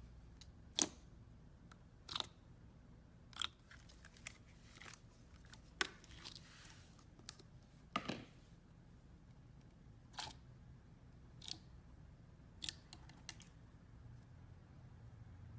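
Slime being handled: a series of short, sharp clicks and pops, roughly one every second or so at an uneven pace.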